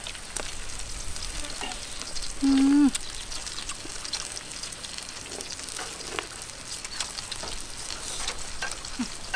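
Beef sizzling and crackling in a dome grill pan over a portable gas stove: a steady hiss scattered with small sharp clicks. About two and a half seconds in, a brief hum from a person's voice stands out above it.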